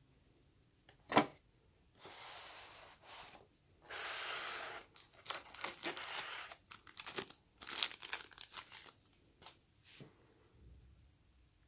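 Hands handling the phone and its foam packing insert. A sharp click comes about a second in, then bursts of rustling and scraping with many short clicks and rubs.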